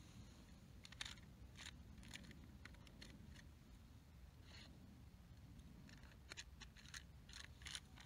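Faint, scattered small clicks and ticks, about a dozen, over a low steady rumble; near silence overall.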